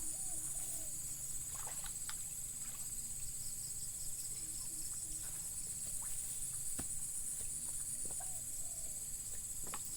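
Steady high-pitched insect chorus, like cicadas or crickets, with two faint short bird-like calls and a few faint clicks.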